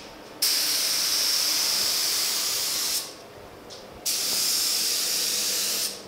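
Gravity-feed paint spray gun spraying reduced polyester primer: two hissing bursts of about two and a half and two seconds, each starting and stopping sharply, with a fainter steady hiss between them.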